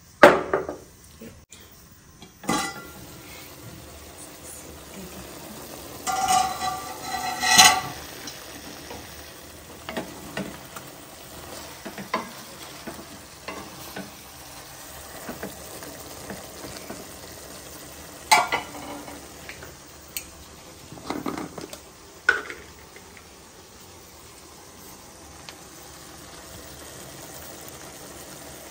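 Pork frying in a pan, sizzling steadily from about two and a half seconds in, with a spatula stirring and scraping against the pan every so often. A sharp knock comes at the very start and is the loudest sound.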